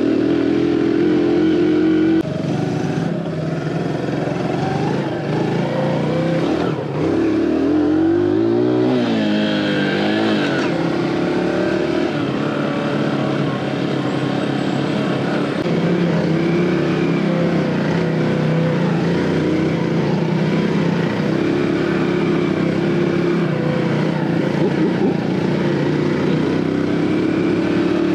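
Single-cylinder 115cc cub motorcycle engine running hard under load off-road. Its pitch swings up and down a few times around eight seconds in as the throttle changes, then it runs steadily.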